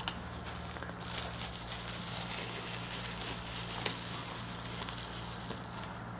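Plastic packaging crackling and crinkling as it is handled and opened, over a steady low electrical hum.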